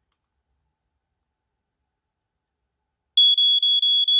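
FireX FXB-1A smoke alarm's piezo horn sounding during a test: about three seconds in, a loud, high-pitched steady tone starts abruptly and holds, with a slight regular flutter.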